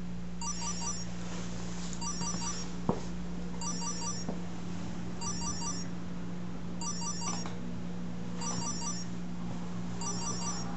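Mobile phone alarm tone: a quick cluster of short high beeps, repeating about every second and a half, over the steady hum of an electric fan, recorded through a compact camera's built-in microphone. A single click about three seconds in.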